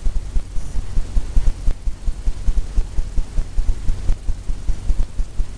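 Paintbrush dabbing and scrubbing on stretched canvas: rapid, irregular low thumps, several a second.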